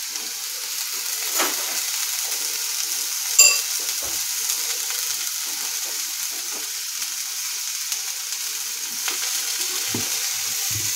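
Pineapple chunks and sugar sizzling steadily in a hot non-stick frying pan as the sugar starts to caramelise. A single short metallic clink about three and a half seconds in, and a couple of soft knocks near the end.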